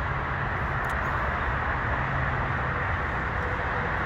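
Steady running noise of a vehicle engine, a low rumble with hiss that does not change, with a faint steady tone coming in near the end.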